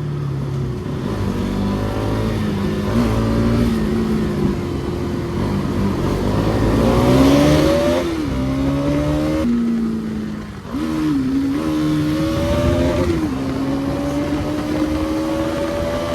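Bajaj Pulsar NS200 BS6's single-cylinder engine running under way, its pitch climbing and then dropping several times as it accelerates through the gears, over a rushing noise of the ride.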